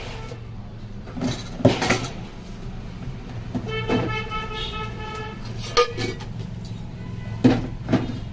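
Background traffic noise with a vehicle horn sounding steadily for about a second and a half near the middle, over a steady low hum, with several sharp knocks scattered through.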